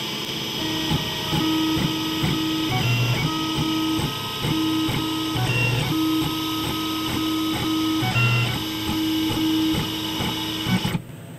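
Tormach PCNC 1100 CNC mill running a drilling cycle with the drill cutting only air: the spindle runs steadily under the whine of the axis stepper motors, which starts and stops with each short move. Everything cuts off about 11 seconds in as the program ends.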